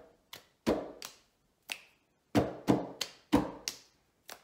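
Two pairs of hands slapping a wooden tabletop and clapping in a table-rhythm clapping pattern: about ten sharp strikes roughly a third of a second apart, with a short pause near the middle.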